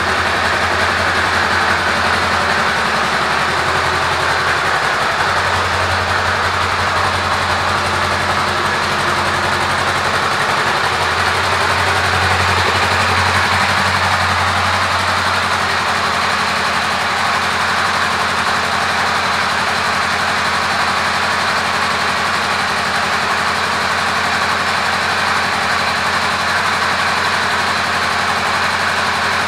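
Honda Rebel 500's parallel-twin engine idling steadily.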